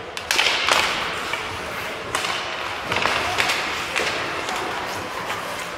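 Ice hockey play: the faceoff's sticks clack about a third of a second in, followed by several more sharp stick-and-puck knocks and skates scraping the ice.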